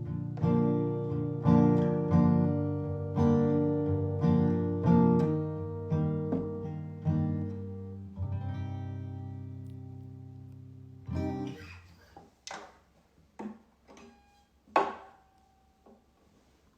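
Acoustic guitar strummed in slow, evenly spaced chords, the last chord left ringing and fading out about eleven seconds in. A few scattered knocks and taps follow.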